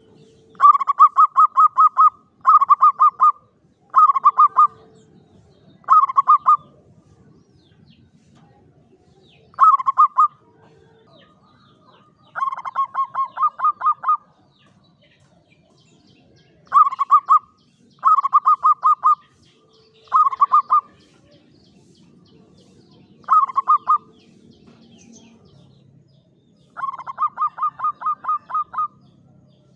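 Zebra dove (Javanese perkutut) cooing: about eleven short phrases of quick, rolling staccato coos, each half a second to two seconds long, with pauses of one to three seconds between them.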